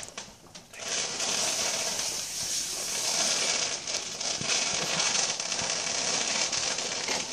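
A ground firework sending a stream of glowing stars up into the air: a steady hissing with crackling that sets in about a second in.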